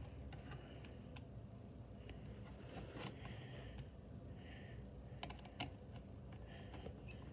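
Hands handling the plastic base and button piece of an animatronic Halloween prop: a few faint, scattered small clicks with light scraping in between.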